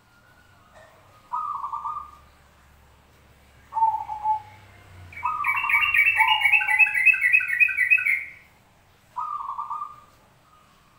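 Zebra dove (perkutut) cooing in short rolling phrases, repeated several times. About halfway through, a second bird's faster, higher chirping song joins for about three seconds.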